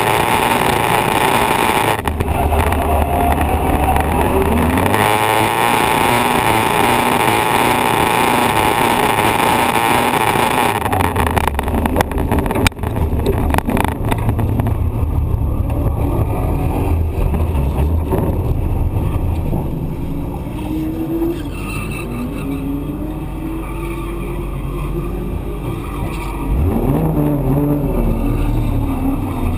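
Drift car engine at high revs with loud tyre and road noise while the car slides, for about the first eleven seconds. A sharp knock comes a second or two later. The engine then drops to lower revs as the car rolls slowly, its pitch rising and falling, and it gets louder again near the end.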